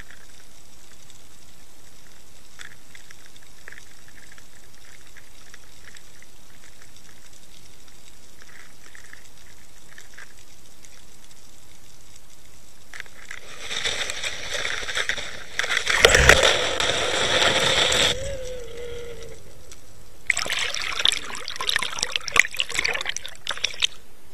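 Underwater camera housing's own audio: a steady hiss with faint scattered clicks, then louder rushing, sloshing water against the housing as the camera is moved, with one heavy knock and a short low hum in the middle and crackling water noise again near the end.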